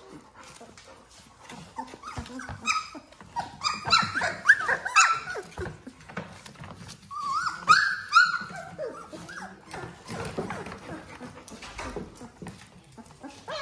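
Young Labrador retriever puppies, about three weeks old, whimpering and squealing in high, thin, wavering cries in two main bouts, about three seconds in and again past the middle, with small clicks and shuffling as they crawl.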